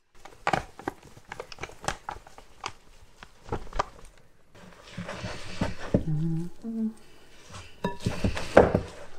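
Kitchen sounds of making dough in a glass mixing bowl: a run of small knocks and clinks as ingredients go in, then flour poured from a paper bag with a hiss and rustle about five seconds in, and hands mixing the dough near the end. Soft background music plays underneath, with a few short notes about six to seven seconds in.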